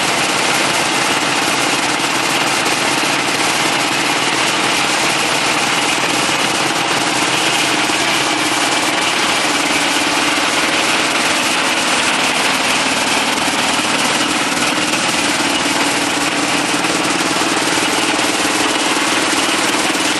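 Small concrete mixer pump running continuously on a test run, a loud, steady machine noise with no pauses or changes in pace.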